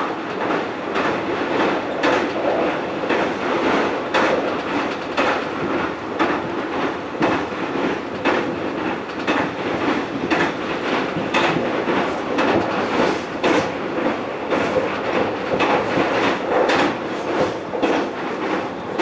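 Hanshin Railway electric train running at speed, heard from on board: a steady rolling rumble with wheels clicking regularly over rail joints.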